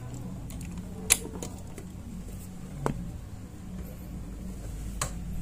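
Three light clicks, about two seconds apart, as a 19 mm wrench is fitted onto a motorcycle's oil drain bolt. A low steady hum runs underneath.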